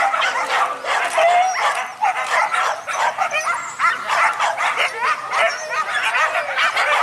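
A pack of leashed boar-hunting dogs barking and yelping all at once, a dense chorus of short, high, overlapping calls that never lets up.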